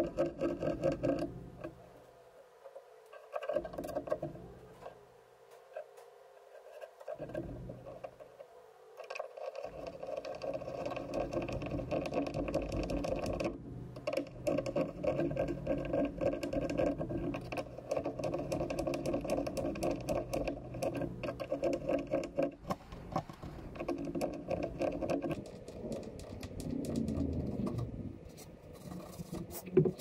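A steel awl scratching and pressing into walnut through the screw holes of a brass half-mortise lock plate, marking the screw positions: many small scratches and ticks over a steady hum.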